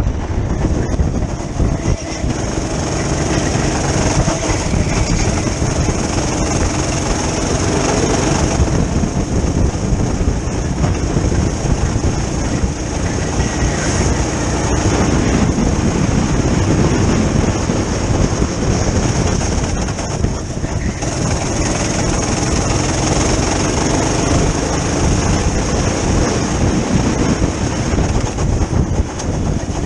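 Go-kart engine running hard, heard up close from the driver's seat, its note falling and picking up again as the kart slows for corners and accelerates out of them.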